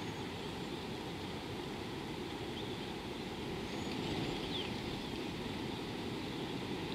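Steady outdoor ambience at a waterhole: a low rumbling background noise with a thin high hiss over it, and a few faint high bird chirps in the middle.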